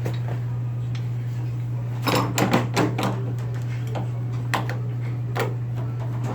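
Metal clicks and clinks of a wrench working on the water heater's old boiler drain valve: a quick cluster about two seconds in, then a few single clicks, over a steady low hum.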